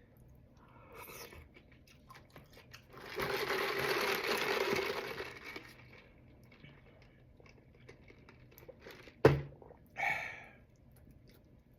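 Takeout food packaging handled: a rustling scrape about three seconds in lasting some two and a half seconds, then a sharp click near the end and a brief rustle after it.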